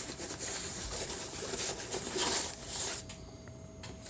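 A hand rummaging in a fabric tool pouch, cloth and the items inside rustling and scraping unevenly, dying away about three seconds in.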